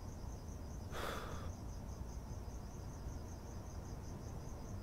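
Crickets chirping in a steady, evenly pulsing trill, with a short hiss of noise about a second in.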